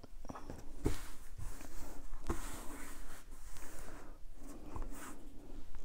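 Cotton gingham fabric rustling and sliding over a cutting mat as it is handled, laid out and smoothed flat by hand, with two soft knocks in the first few seconds.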